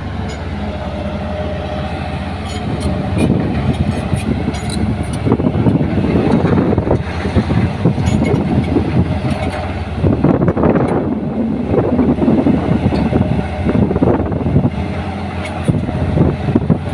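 Hitachi hydraulic excavator's diesel engine running steadily at work, with irregular knocks and scraping sounds over it.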